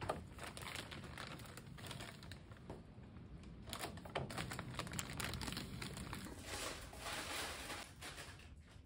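Clear plastic bag of cereal crinkling as it is handled and laid into a vacuum sealer, with a few light clicks and knocks as the sealer's lid is closed.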